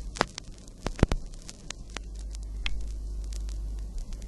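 Irregular crackles and sharp pops over a steady low hum, with the loudest pop about a second in.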